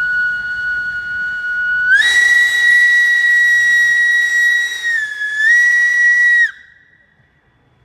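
Steam locomotive whistle (ČSD class 555.0) blowing one long call: it holds a steady high pitch for about two seconds, steps up to a higher pitch, dips briefly near five seconds in, and cuts off about six and a half seconds in.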